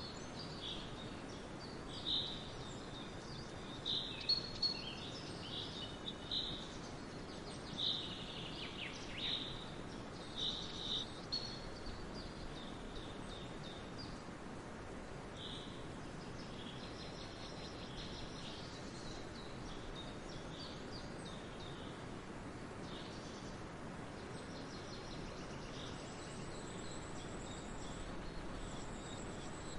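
Birds chirping, a cluster of short, bright calls in the first half that grows sparser and fainter later, over a steady faint hiss of outdoor ambience.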